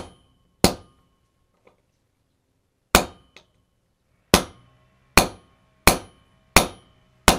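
Small sledgehammer striking a deep socket to drive a bearing cap out of the yoke of a worn U-joint on a Toyota 4Runner rear driveshaft. Seven sharp metal strikes, each with a short ring, plus one lighter tap. They come a second or two apart at first, then quicken to under a second apart.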